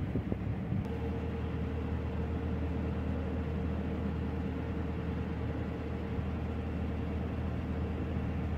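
Brief wind buffeting on the microphone gives way, about a second in, to a narrowboat's engine running steadily at cruising speed: a low, even drone with a steady hum above it.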